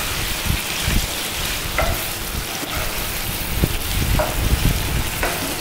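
Chicken pieces sizzling in hot oil in a frying pan as they are lightly fried, stirred with a wooden spatula that knocks and scrapes against the pan now and then.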